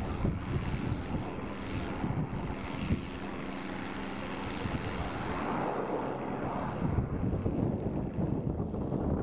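Tractor engine running steadily under load while pulling a tillage implement across a ploughed field, with wind rumbling on the microphone.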